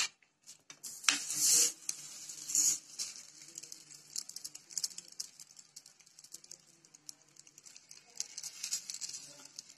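A frozen paratha is handled out of its plastic sheet and laid in a hot nonstick pan, with two short rustles about a second in and again near three seconds. It then crackles and ticks faintly as it heats and is pressed with a silicone spatula.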